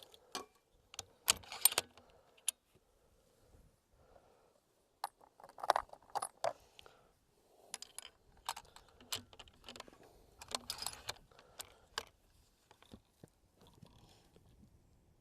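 Irregular metallic clicks and clinks from rifle gear being handled, coming in short clusters with a few louder knocks.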